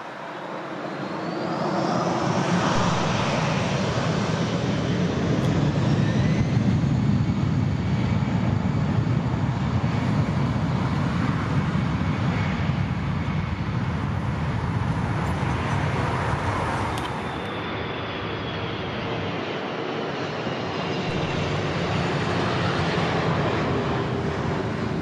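Twin-engine jet airliner's turbofan engines spooling up: a whine that rises in pitch over the first few seconds, then a steady roar with a thin turbine whine as the airliner rolls along the runway. In the second half a steady low engine tone comes in and falls slightly near the end.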